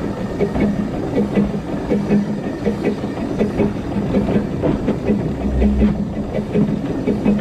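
Narrow-gauge steam locomotive Dolgoch, an 0-4-0 well tank, running along the line. Its steady rhythmic beat and wheel clatter come over a constant steam hiss, with a brief low rumble about three-quarters of the way through.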